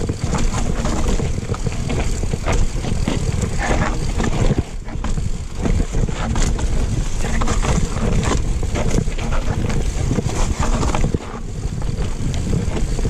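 Mountain bike descending a rough dirt trail: constant rattling and knocking of the bike over roots and rocks, with wind buffeting the microphone.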